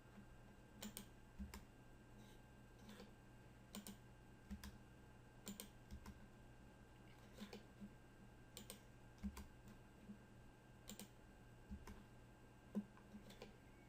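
Faint, irregular clicking of a computer mouse and keyboard, with a steady low hum underneath.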